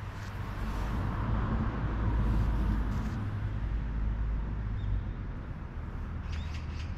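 Steady outdoor rumble of traffic, swelling slightly around two to three seconds in, with a few brief faint high sounds near the end.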